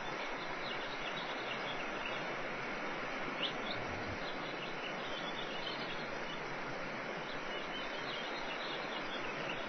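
Steady outdoor background hiss with faint, scattered high bird chirps throughout, and a single short thump about three and a half seconds in.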